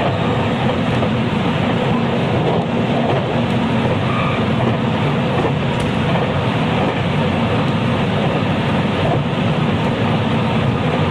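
Interior running noise of a JR West 223 series electric multiple unit's motor car travelling at speed: a steady, loud rumble of wheels on rail and running gear, with no clear pitch changes.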